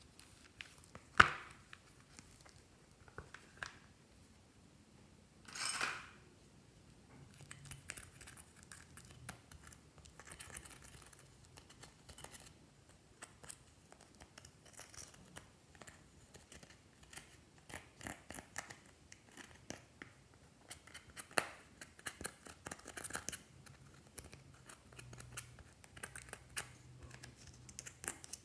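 A sharp click as a cardboard eyeshadow palette case is opened, and a brief rustle a few seconds later. Then many small irregular scratching ticks as a pointed tool scrapes and crumbles pressed powder eyeshadow out of its pans.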